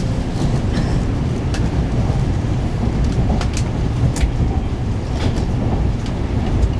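Shinkansen bullet train running, heard from inside the carriage: a steady low rumble with scattered light clicks.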